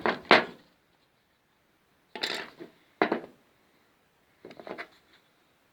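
New brake pads being handled and unpacked: four short bursts of clatter and scraping over about five seconds.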